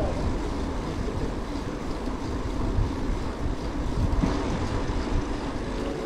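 Wind buffeting an outdoor microphone: a steady noise, heaviest in the low range.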